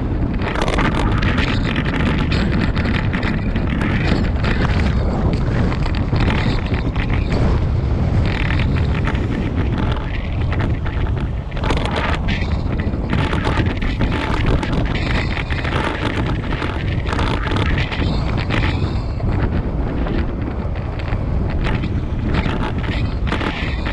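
Steady wind rumble buffeting the microphone of a camera riding on a moving bicycle.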